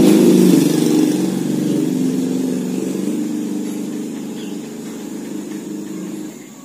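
Steady engine hum, loudest at the start and fading gradually over several seconds.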